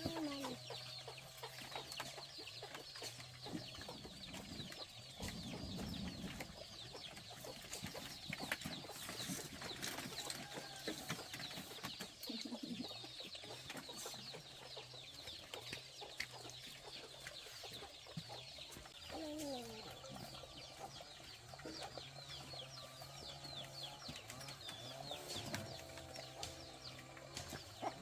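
Chickens clucking and cheeping: many short, high, falling calls and a few lower ones, fairly faint, over a steady low hum.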